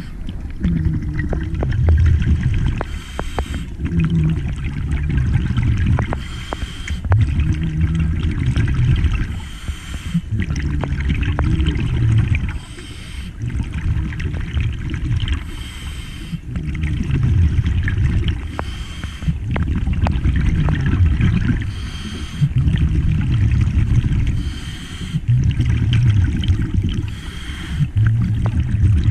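A scuba diver breathing through a regulator underwater. Each inhale is a short hiss and each exhale is a rush of bubbles, about every three seconds.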